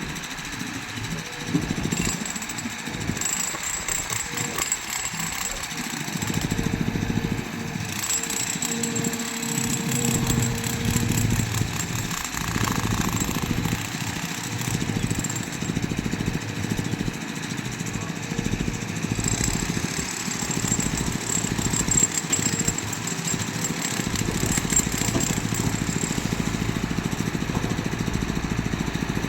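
Diesel engine of heavy machinery running steadily, getting louder about six seconds in and rising and falling with load.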